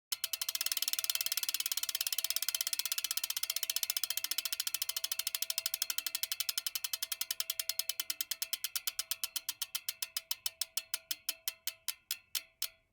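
Sound effect of rapid mechanical ratchet-like clicking, many clicks a second at first and slowing steadily until the clicks come only a few a second near the end, the way a spinning clicker wheel runs down.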